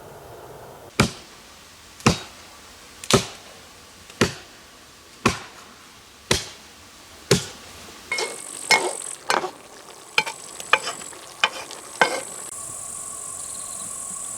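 An axe chopping wood: seven sharp blows about a second apart, then a quicker, irregular run of lighter strikes.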